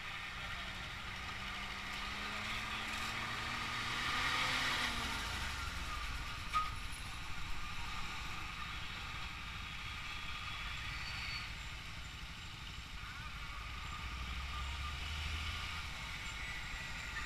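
Highway traffic. A vehicle's engine rises in pitch as it pulls away over the first few seconds, then trucks pass close by, a large box truck among them near the end. A sharp click comes about six and a half seconds in.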